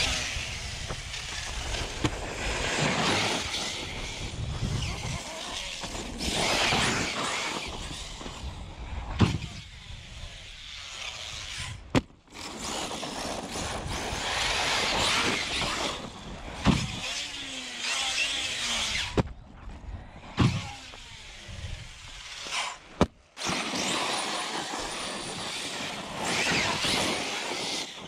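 Arrma Talion 6S brushless electric RC truck running flat out over hard-packed dirt and gravel: a rushing mix of motor and tyre noise that rises and falls with the throttle, broken by several sharp knocks as the truck lands. The sound cuts abruptly between short clips.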